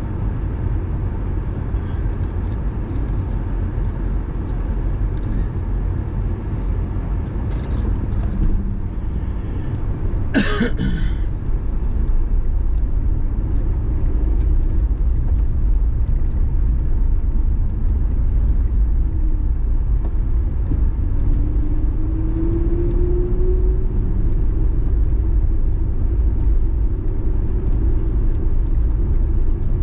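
Mercury Mountaineer SUV driving, heard from inside the cabin: a steady low engine and road rumble with small scattered rattles. A sharp clunk comes about a third of the way in, the rumble grows a little louder soon after, and a faint rising engine tone runs through the second half.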